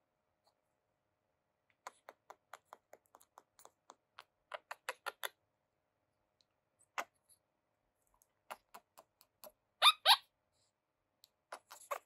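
Quaker parrot (monk parakeet) making runs of short, sharp clicks, about four or five a second, then two louder short chirps near the end.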